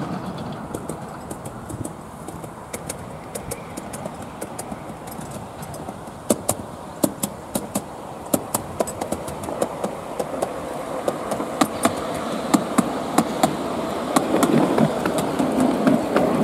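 Miniature ridable steam locomotive, built by Station Road Steam Engineers, running along its small-gauge track and drawing closer, its running sound growing louder. Sharp irregular clicks begin about six seconds in and come thicker and louder toward the end.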